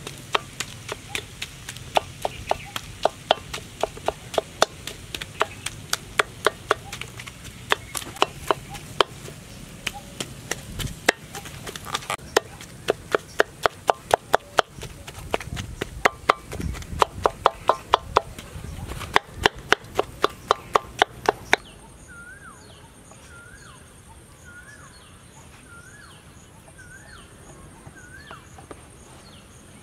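Knife chopping on a board in quick, uneven strokes, about three a second, which stop abruptly about two-thirds of the way in. After that a faint chirping repeats about once a second over a steady high hum.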